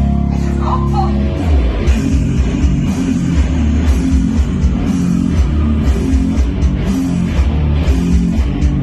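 Heavy rock music with guitar and drums: a held chord gives way about a second in to a fast, chugging low guitar riff over the drums.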